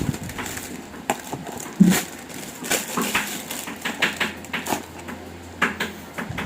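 Packaging being handled and unwrapped from a bicycle hub: irregular crinkling, crackling and clicking, with a soft thump just before two seconds in.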